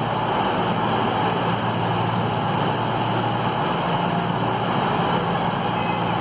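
Class 220 Voyager diesel-electric multiple units idling at the platform, their underfloor diesel engines giving a steady drone under the echo of a large train shed.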